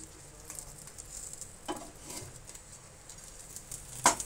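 Spatula scraping and tapping on a flat pan while flipping buns toasting in ghee, over a faint sizzle; a few light clicks, then one sharp knock near the end.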